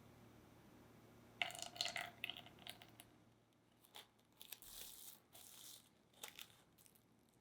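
Soft crinkling and crackling handling sounds in two clusters, with a short hiss about five seconds in.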